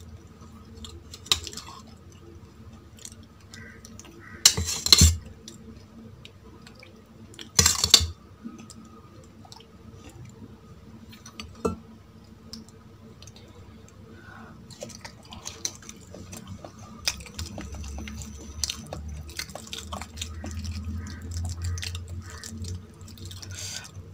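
Close-up eating sounds: chewing and small clicks of food and utensils against a plate, with two loud, sharp crunches about five and eight seconds in.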